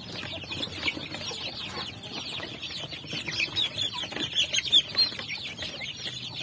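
A flock of young domestic chicks peeping continuously, many short high falling peeps overlapping. The peeping gets louder about four seconds in as a chick is caught by hand, with a brief sharp burst near the end.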